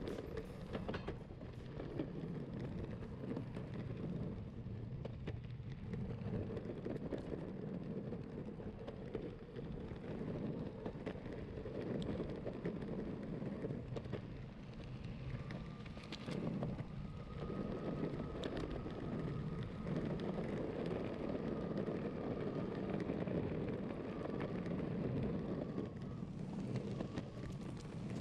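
Steady rumble of an electric longboard riding along a road: wheels rolling on the asphalt with wind buffeting the microphone. A faint, steady high whine joins about halfway through.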